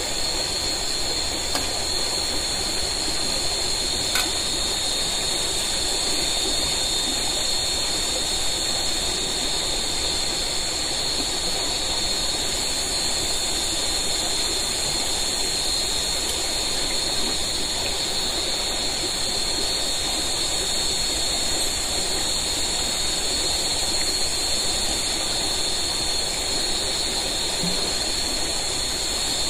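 Steady night ambience over a forest river: a continuous high-pitched insect chorus over the rush of flowing water.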